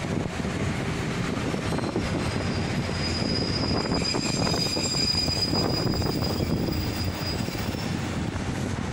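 Train running on the rails with a steady rumble. A high, thin wheel squeal rises for a few seconds in the middle and fades near the end.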